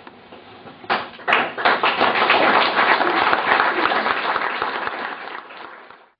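Audience applauding: clapping starts about a second in, swells, then dies away and cuts off near the end.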